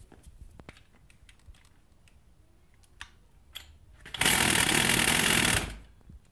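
Pocket bike's small two-stroke engine revved up very loud for about a second and a half, starting about four seconds in, then dropping back. It makes the noise the owner took for a failed bearing; the cause turned out to be the four cylinder bolts, which had worked loose.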